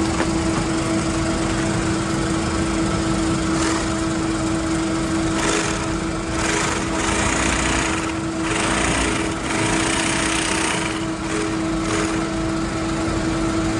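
Motor-driven machinery in a sawdust pellet plant running with a steady hum. Several bursts of hissing, rushing noise come and go in the middle.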